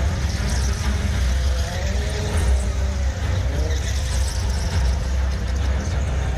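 A stunt vehicle's engine running with a steady deep rumble, its pitch rising and falling as it revs.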